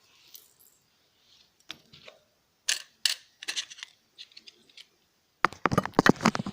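Salvaged hard-drive parts being handled and set down: scattered clicks and knocks, then a quick run of clattering near the end.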